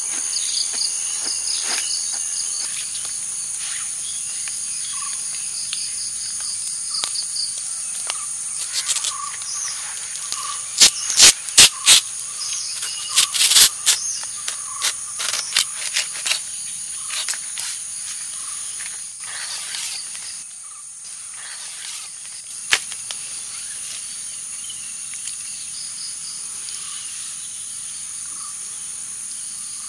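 Insects chirring in a steady, high-pitched drone. About a third of the way in, a short run of sharp crackles and rustles comes from a large banana leaf being handled; these are the loudest sounds.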